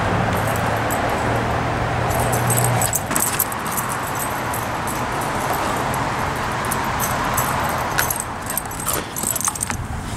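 Light metallic jingling, coming in repeated small clicks, over a steady rushing background. A low steady hum stops about three seconds in.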